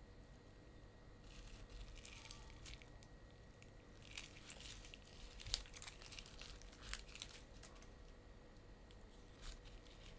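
Faint rustling and a few light clicks from candy and small plastic tubs being handled on an artificial grass mat. The sharpest click comes about halfway through, with another a second later.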